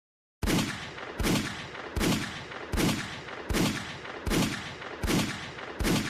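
Eight heavy impact hits from an intro sound effect, evenly spaced about three-quarters of a second apart, each a sharp crack with a deep fading boom.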